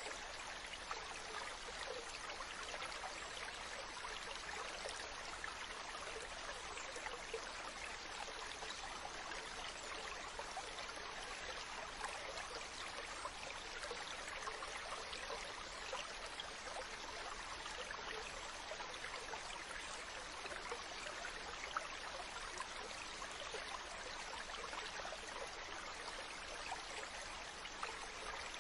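Mountain stream running water, a steady babble with small splashes and trickles scattered through it.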